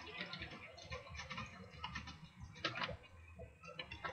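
Typing on a computer keyboard: irregular runs of quick key clicks.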